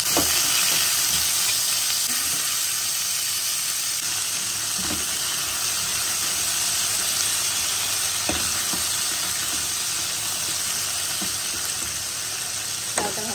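Bottle gourd cubes frying in hot oil in a non-stick kadai: a steady sizzle, strongest at first and slowly easing off. A few soft knocks come from a spatula stirring the pieces.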